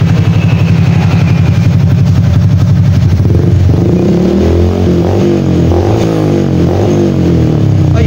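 Honda Wave 125i's single-cylinder four-stroke engine running through an aftermarket RS8 dual-tip muffler. It holds a steady idle, then from about halfway through is revved up and down several times.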